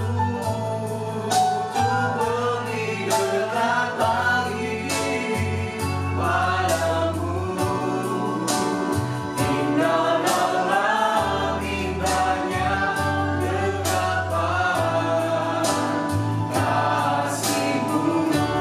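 Small mixed group of men's and women's voices singing an Indonesian praise-and-worship song together, over instrumental backing with a deep bass line and a steady beat.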